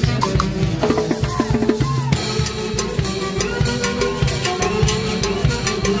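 Live huaylash dance music from a Mantaro Valley festival band: a steady, driving drum beat with pitched melody notes over it.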